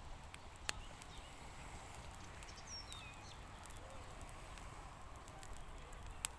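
Quiet lakeside ambience with a burning bonfire giving a few sharp isolated cracks, one under a second in and one near the end. A small bird gives a few short, high chirps that slide downward, about three seconds in.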